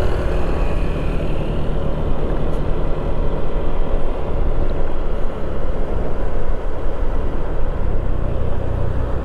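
A 2015 Honda PCX150 scooter's single-cylinder engine running steadily at low riding speed, with a steady rushing noise over it.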